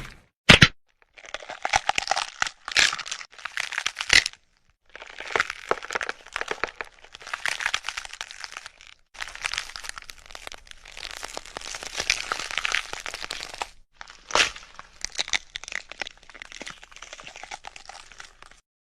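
Crackling and crunching sound effect: dense runs of small cracks and crinkles in several stretches a few seconds long, broken by short silent gaps, with a few sharper single cracks standing out.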